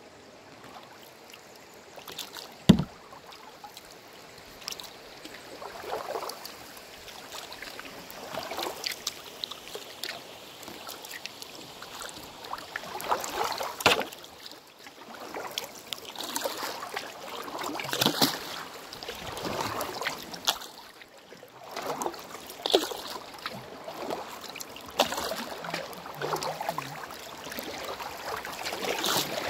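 Water swishing and lapping against a canoe gliding down a glacial river, in irregular swells every couple of seconds. A single sharp knock on the boat about three seconds in is the loudest sound. Rushing water grows louder near the end as the canoe comes into a riffle.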